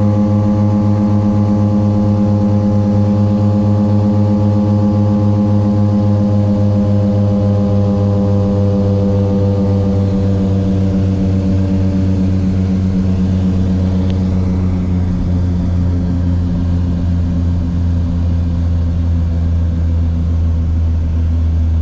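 Turboprop engine and propeller of a small high-wing plane droning loudly inside the cabin on final approach, a steady hum whose pitch sinks slowly through the first half as power comes back for landing.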